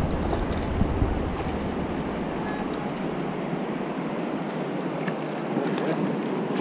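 Steady rush of river water pouring over a weir, with wind buffeting the microphone in the first second or so.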